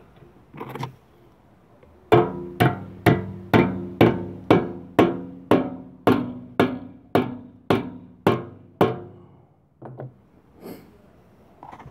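A hammer striking a bent sheet-metal chimney cap to seat it in the chimney top: about fifteen even blows, roughly two a second, each with a short metallic ring. Two lighter knocks follow near the end.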